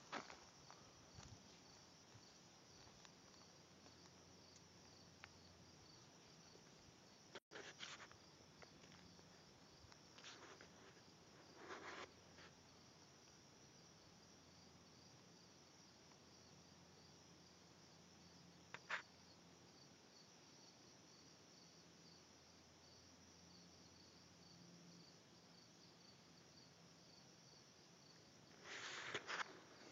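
Faint, steady insect chirping: an even, rapidly pulsing high-pitched trill, with a few brief rustles and clicks scattered through it.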